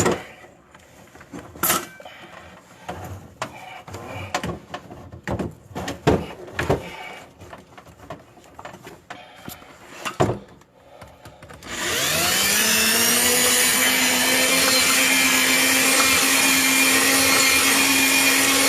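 Scattered clicks and knocks as the drain-cleaning cable is handled and fed back into the line, then about twelve seconds in the electric drain-cleaning machine's motor starts, rising quickly in pitch and then running at a steady hum as it spins the cable in a clogged 1.5-inch sink drain.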